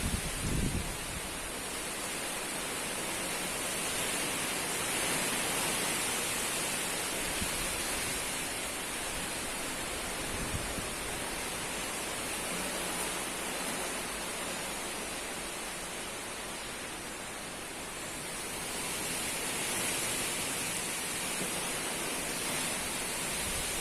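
Strong wind blowing hard in a steady rush, swelling slightly twice, with a brief low buffet on the microphone right at the start.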